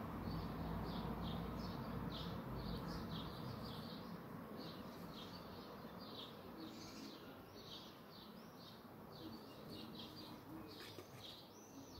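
Small birds chirping in the background, a steady string of short, high notes. A low rumble underneath fades over the first few seconds.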